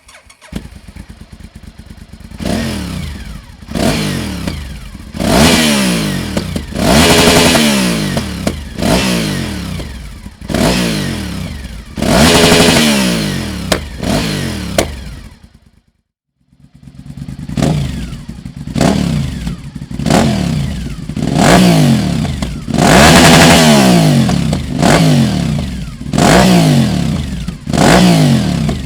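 Honda VTR1000 SP1 V-twin engine through aftermarket Dominator silencers, revved again and again in short throttle blips, each rising and falling in pitch within a second or so. It runs at a low idle at the start, cuts out about halfway through, then idles and blips again.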